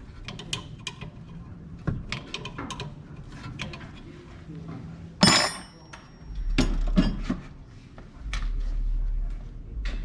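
Metal hand tools working on a brake caliper bolt: a ratchet and wrench clicking and clinking, with one loud metal clank about five seconds in that rings briefly.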